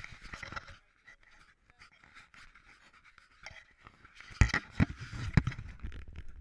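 Handling noise on a small action camera: a short breathy hiss right at the start, then from about four seconds in a run of loud knocks and rubbing as the camera is moved and set down.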